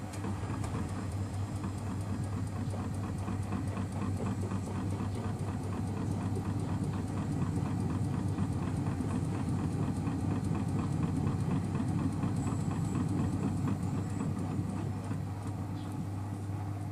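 Miele Softtronic W 2557 front-loading washing machine running its spin after a hot main wash, a steady hum under a fast, even rhythmic whir from the drum, growing louder through the middle and easing near the end. The machine is fighting a lot of suds in this spin.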